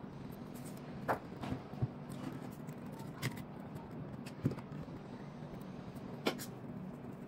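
A handful of light clicks and taps as an iPhone's screen is set down onto its frame in an alignment fixture and the phone is handled, over a steady low hum.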